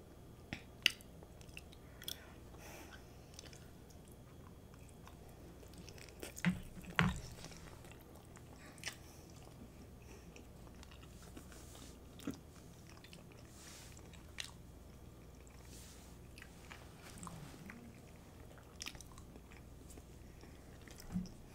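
Close-miked, quiet chewing of a forkful of chili cheese fries: scattered soft, wet mouth clicks and smacks, with a few louder ones about seven seconds in and just before the end.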